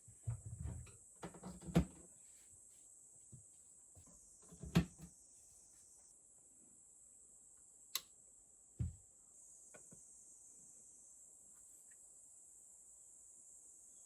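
Steady high-pitched chirring of crickets or other insects, with a few scattered knocks and clicks of objects being handled, the loudest about two and five seconds in and a last thud just before nine seconds.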